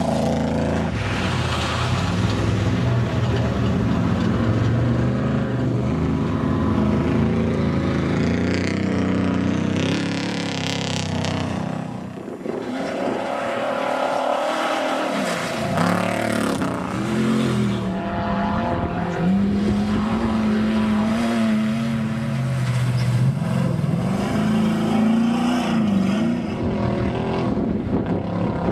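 Off-road race truck engines running hard, their pitch rising and falling again and again as the trucks rev and pass. The engine sound briefly drops away about halfway through, then returns with repeated rises and falls.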